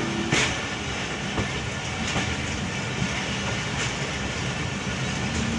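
Passenger train running slowly, heard from aboard a coach: a steady rumble of the carriage with a few sharp clacks, about one every second or so, as the wheels cross rail joints.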